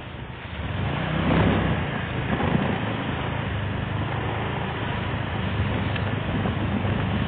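Vehicle engine and road noise, swelling about a second in and then running steadily.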